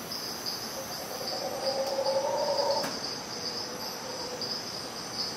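Night insects chirping in a steady pulsing chorus, about three pulses a second. A faint, drawn-out low call rises and fades between about one and three seconds in.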